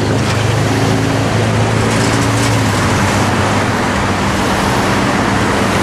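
Union Pacific freight train cars rolling past a grade crossing: a loud, steady rumble of steel wheels on the rails, with a low hum that fades out about three seconds in.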